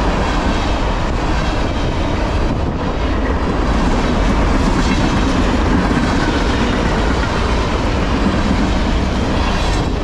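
A freight train of loaded trash cars rolling past close by: a steady, loud rumble and clatter of steel wheels on the rails.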